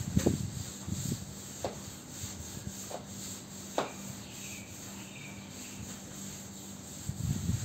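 Broom scrubbing a wet, soapy tiled floor, rubbing strokes that build up near the end, with scattered light knocks and rustles before it.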